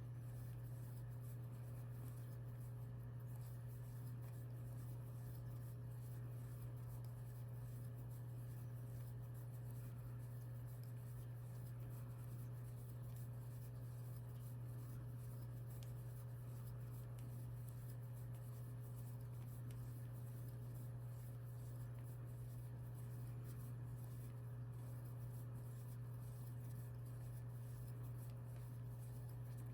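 Faint rustling and scratching of a crochet hook pulling yarn through stitches, over a steady low hum.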